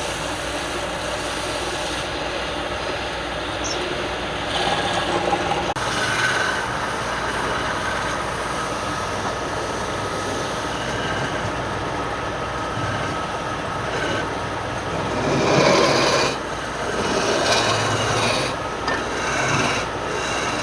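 Wood lathe running steadily while a tool works the spinning wood, making a continuous scraping, rubbing noise that swells louder a few times near the end.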